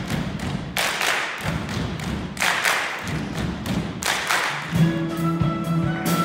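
Dancers stamping and clapping in rhythm on a stage floor, with loud hits about every second and a half and lighter taps between. About five seconds in, the orchestra enters with held notes.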